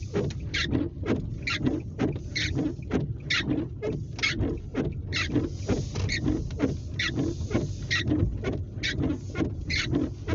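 Windshield wiper blades squeaking across wet glass with each stroke, about once a second, over the low rumble of the car driving.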